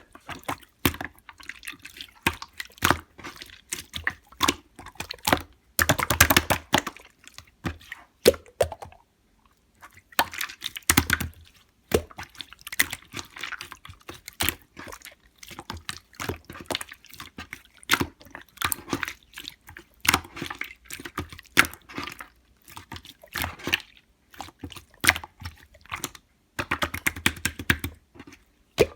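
Syrupy strawberry slime being played with, a steady run of wet, sticky clicks and pops, thickening into longer squelching stretches a few times.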